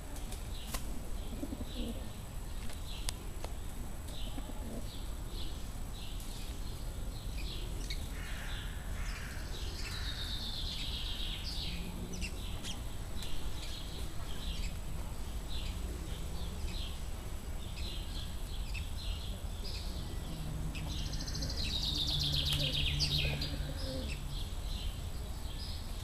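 Small songbirds chirping steadily, with a longer falling song phrase twice, about ten seconds in and again near the end. Under this, a feral pigeon coos low, mostly near the end.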